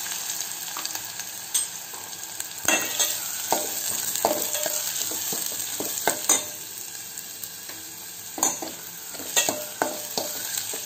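Chopped small red onions sizzling in hot oil in a stainless steel pot, being sautéed. A steel spoon stirring them scrapes and knocks against the pot about ten times.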